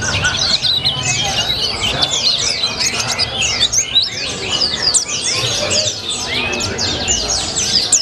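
Caged white-eye (pleci) in full song: a rapid, unbroken twittering of high, quick chirps and down-slurred notes, in the sunbird-like style ("rasa colibri") that keepers prize.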